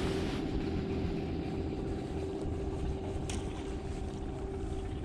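A boat's motor running steadily with a constant hum.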